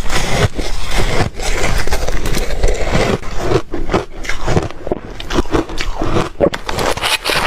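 Crunchy ice being chewed: loud, continuous crunching and cracking, with many sharp snaps packed close together.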